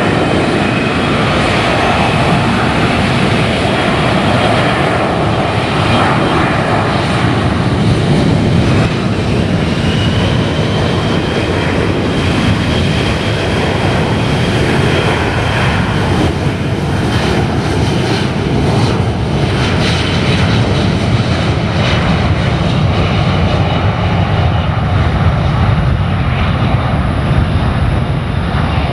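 Boeing KC-135 Stratotanker's four CFM F108 turbofans at takeoff thrust through the takeoff roll and liftoff: a loud, steady jet rush with a high fan whine over it.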